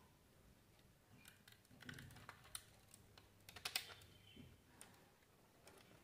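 Faint, scattered clicks and scrapes of electrical wires being handled and fitted into the plastic terminal block of a smart switch module, with a quick cluster of clicks about three and a half seconds in.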